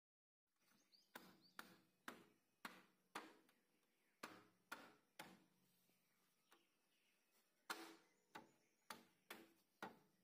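Open hands slapping a car tyre again and again to free a jammed wheel: sharp slaps about two a second, a run of five, then three, a pause of about two seconds, then six more.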